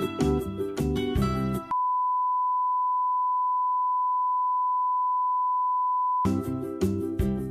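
Background music with plucked-string notes breaks off about two seconds in. A single steady electronic beep at one unchanging pitch replaces it for about four and a half seconds, then cuts off as the music resumes.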